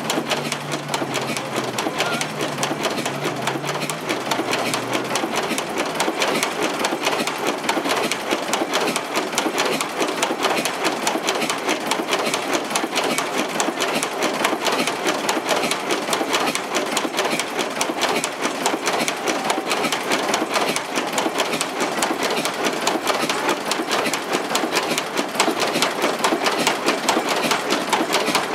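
Vintage Dutch-built industrial diesel engine running steadily with a fast, even mechanical clatter. A low hum fades out in the first few seconds.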